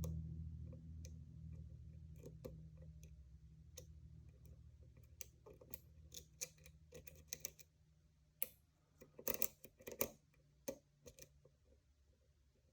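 Dimple lock pick and tension wrench working the pins of a cheap 7-pin dimple lock: faint, irregular small metallic clicks and scrapes, coming thickest in the second half. A low hum fades away over the first several seconds.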